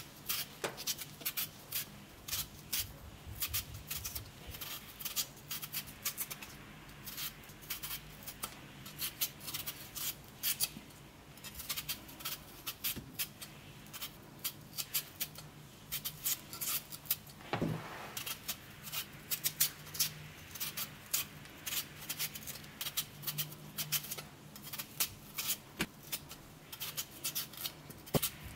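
A potato being shaved: a quick, irregular run of short, crisp scraping strokes, several a second, with a faint steady hum underneath.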